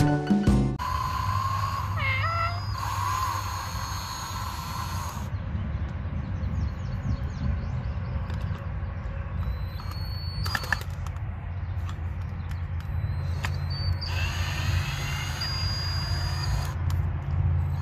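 Cordless drill running as it drives a screw into a wooden board, in short spells with pauses between, over a low steady rumble.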